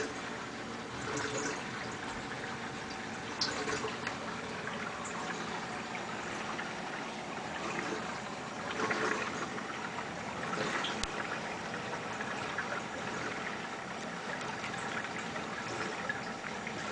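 Water trickling and running steadily in a saltwater aquarium, the ongoing sound of the tank's water circulation.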